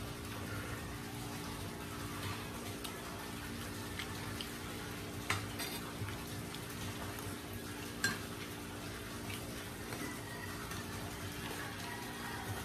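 A metal fork clinking and scraping against a plate while someone eats, with two sharper clicks about five and eight seconds in, over a steady low hum.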